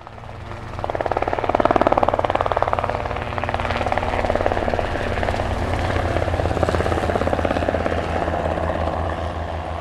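Helicopter flying over: fast, even rotor-blade chop over a low engine hum, growing louder over the first two seconds, then holding steady and beginning to fade near the end.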